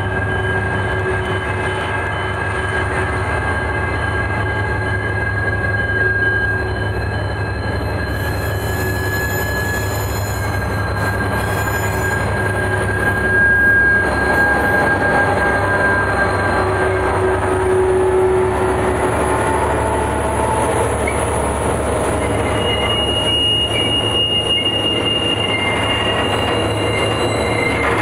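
Train wheels squealing against the rails as a train passes. Several steady, shrill squeal tones come and go and shift in pitch over a constant low rumble.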